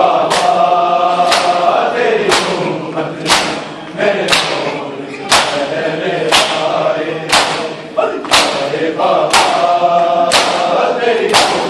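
Crowd of men chanting a nauha lament together while beating their chests in unison (matam), the strokes landing in time about once a second.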